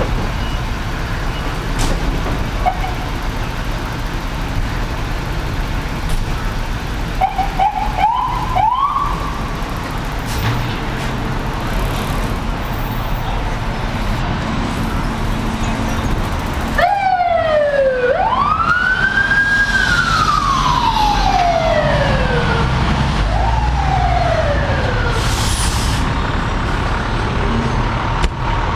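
Fire engine siren: a few short rising chirps, then a quick yelp followed by a long wail that rises and slowly falls, and one more short falling wail. Under it, a steady low rumble of engines and traffic.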